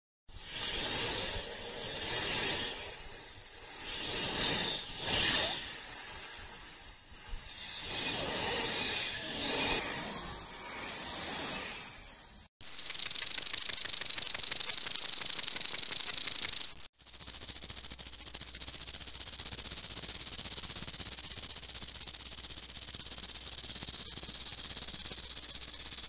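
Snake hissing: a run of hisses that swell and fade unevenly over the first half. Then, after abrupt cuts, two long steady hisses follow, the last one quieter with a faint low hum beneath it.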